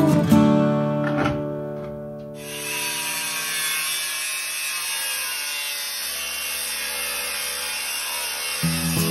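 Angle grinder with a cutting disc running steadily as it cuts through the steel hoop of an oak whiskey barrel. It starts about two seconds in, as acoustic guitar music fades, and guitar music comes back in near the end.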